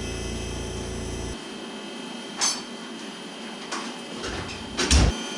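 A steady machine hum that cuts off about a second in, followed by a few separate sharp knocks and clatters, the loudest near the end with a dull thump under it.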